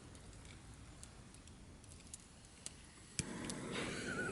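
Quiet background with a few faint, scattered light clicks; about three seconds in, a sharp click and the background suddenly jumps to a louder, steady noise.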